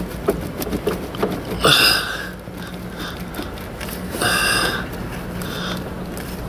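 Rubber heater hoses and plastic coupler being worked by hand: light clicks and rubbing throughout, with two short squeaks about two seconds and four and a half seconds in.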